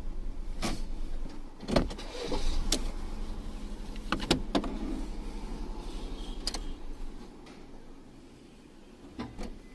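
Car engine idling, heard from inside the cabin as a steady low hum that grows quieter about seven seconds in, with several short sharp clicks and knocks.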